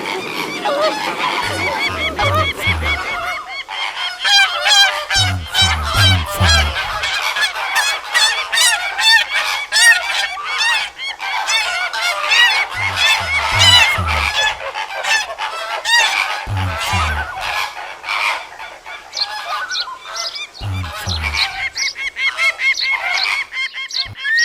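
Cartoon sound effect of a flock of geese honking: a dense, continuous clamour of overlapping calls, with short runs of low thumps every few seconds.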